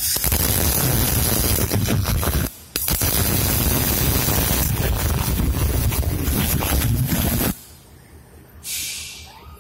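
MIG welding arc running while laying a continuous flat bead on a metal plate, in two runs with a short break about two and a half seconds in, stopping about seven and a half seconds in.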